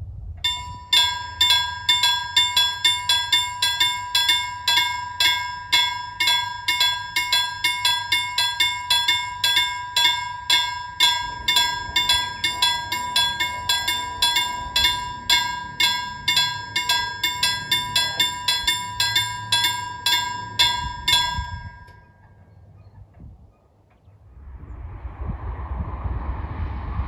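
Level-crossing warning bell ringing at about two strokes a second while the full barriers lower, stopping suddenly about 21 seconds in. After a short lull, a rising rush near the end as an electric train approaches.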